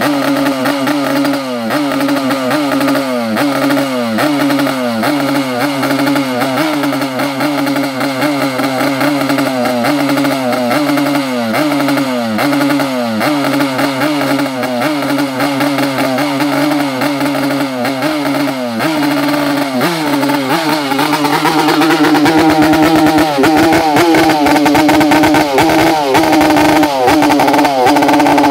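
Yamaha RX-King's 135 cc two-stroke single-cylinder engine being blipped in the rhythmic 'bleyer' throttle style, about one rev every second. About two-thirds of the way through, the revs rise and are held higher and louder.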